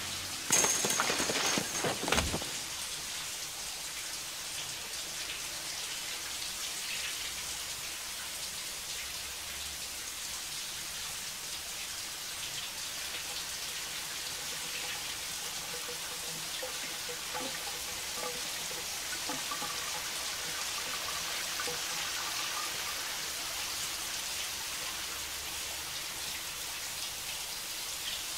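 Shower curtain rings snapping off the rod in quick succession as the curtain is pulled down, ending about two seconds in with a heavy thud. Then a shower runs steadily, water spraying into the tub and running to the drain.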